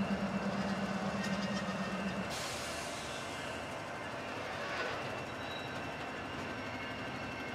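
Caboose and flatcars of a slow-moving freight train rolling past, wheels running steadily on the rails. A low pulsing hum stops about two seconds in, a high hiss sets in at the same moment, and a brief falling squeal comes near five seconds in.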